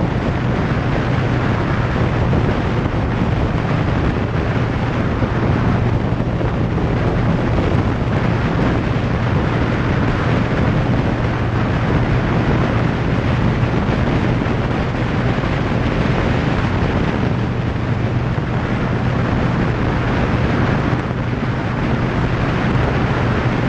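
Wind rushing over the action camera's microphone at highway speed, over the steady low drone of a Harley-Davidson Softail's V-twin engine running at cruising speed. The sound is constant throughout, with no gear changes or revving.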